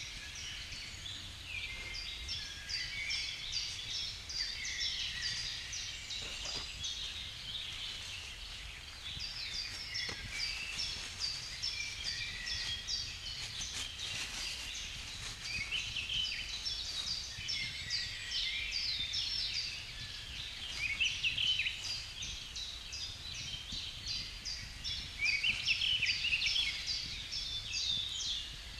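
Many small birds calling and singing at once: a dense chorus of quick, high chirps overlapping throughout, a little louder near the end.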